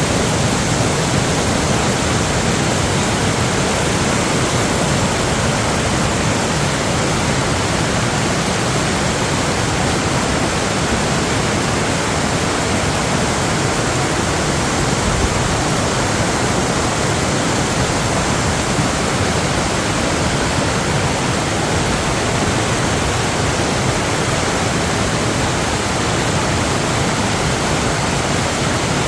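Loud, steady rush of water with no change throughout.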